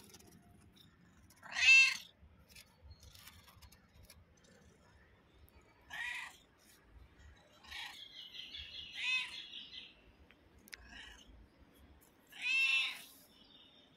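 Black-and-white mother cat meowing, three short loud calls several seconds apart. Between the second and third, a run of fainter, high-pitched chirping squeaks.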